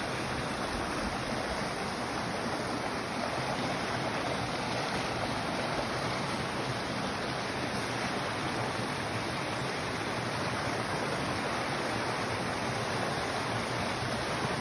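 Small woodland stream flowing over rocks, a steady, unbroken rush of water.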